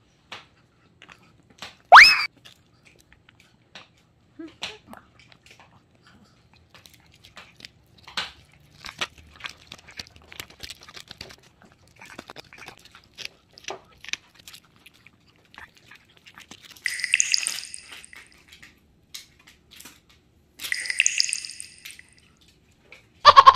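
Chihuahua gnawing and tearing at a dried pig ear, a scatter of small crunches, clicks and crackles of teeth on the tough cartilage, with one sharp loud click about two seconds in. Later come two high-pitched squeaky sounds, each about a second long.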